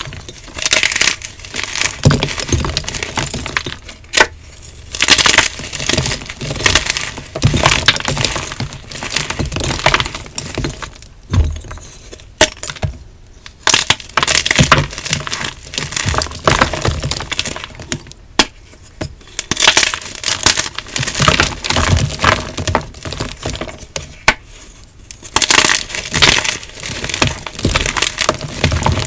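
Hard blocks of dyed gym chalk being crunched and crumbled, close to the microphone: repeated bursts of gritty crackling with sharp snaps as pieces break, with short pauses between squeezes.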